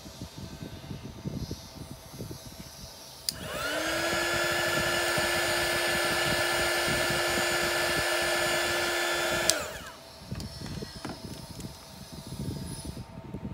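Handheld heat gun switched on with a click: its fan motor spins up to a steady hum and whine and blows for about six seconds over epoxy resin in a keychain mould. It is then switched off with a click and winds down.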